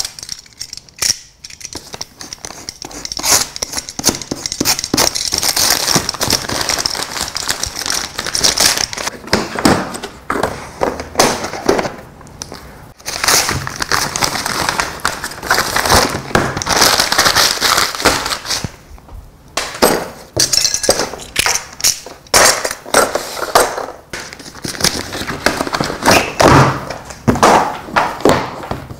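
Brown kraft paper parcel wrapping being slit with a box cutter, then torn and crumpled by hand: loud, dense rustling and ripping in uneven spells with a few short pauses.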